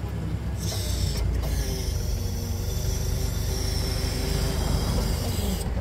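Forklift engine running with a steady low drone while its hydraulic lift works under load. A high hiss with a faint whine starts about half a second in and cuts off just before the end.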